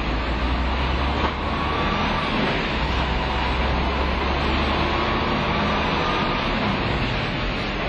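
MAN truck running on a roller test stand, its wheels turning the rollers: a steady low hum and rumble, with a faint whine that rises in pitch twice.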